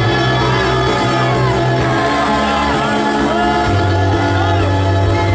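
Loud electro house music played live over a nightclub sound system, with long held bass notes that change pitch every second or so and gliding synth or vocal lines above them. Crowd shouts rise over the music.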